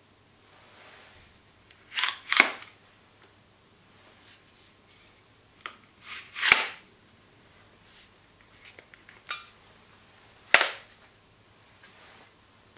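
Polymer adjustable buttstock of a WE MSK gas blowback airsoft rifle being worked by hand: sharp plastic clicks and snaps as it slides and locks. A quick double click comes about two seconds in, single loud snaps at about six and a half and ten and a half seconds, and lighter ticks fall between.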